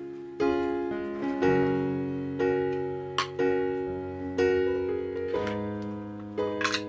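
Background piano music: soft sustained chords, a new one struck about once a second and left to ring away. Two short sharp clicks cut through it, about three seconds in and again near the end.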